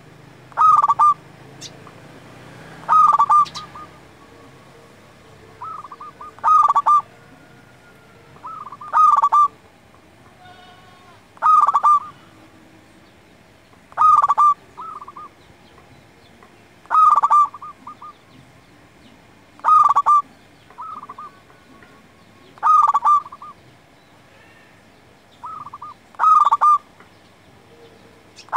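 Zebra dove (perkutut) singing its cooing song: a short phrase of quick rolling coos, repeated about ten times at a steady pace of one every two to three seconds.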